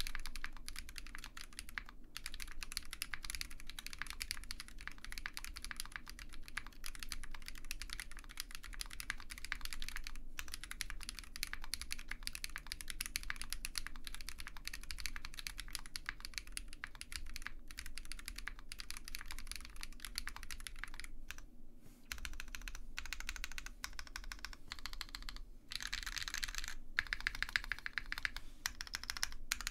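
Typing test on an OwLab Mr Suit mechanical keyboard built with lubed Zaku switches, a POM plate, GMK keycaps and no foam inside: a steady flurry of key clacks. Near the end the typing breaks into separate, louder presses, including the spacebar.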